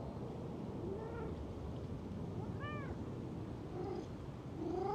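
A cat meowing four times, each meow short and rising then falling in pitch; the last, near the end, is the loudest.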